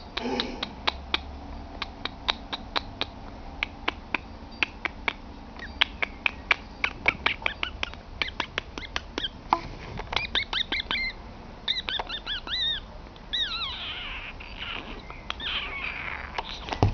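A person making rapid tongue clicks with short high, squeaky chirping mouth sounds in the middle, calling for a puppy's attention.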